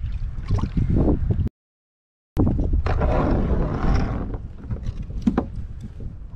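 Wind buffeting the microphone on an open kayak, broken by a short gap of total silence. After the gap comes about a second and a half of rushing hiss that fades away, then a few light knocks.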